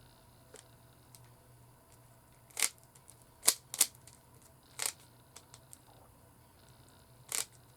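Rubik's Cube faces being twisted by hand: about five sharp plastic clicks spread out, two of them close together near the middle.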